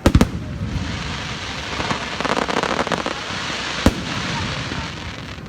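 Fireworks going off: a loud bang at the start, then a few seconds of dense crackling, with another sharp bang about four seconds in.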